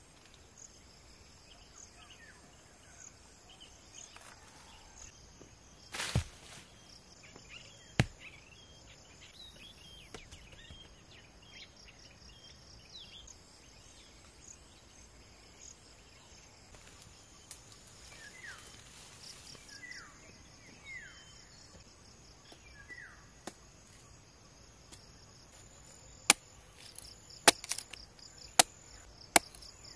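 Steady insect chirring with scattered short chirps, and two single knocks in the first third. Near the end a machete strikes a green coconut's husk several times in quick succession, sharp chopping blows as it is hacked open.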